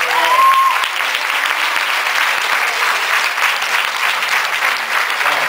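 Audience applauding, many people clapping steadily. A short high whistle from the crowd rises and holds about half a second in.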